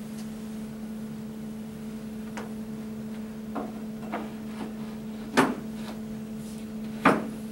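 Laminated particleboard hutch panels knocking and bumping as two assembled sections of the hutch are set in place against each other: about five short knocks, the loudest about halfway through and another sharp one near the end, over a steady low hum.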